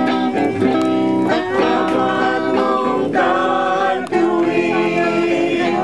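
People singing a song with guitar accompaniment, holding long notes with brief breaks between phrases.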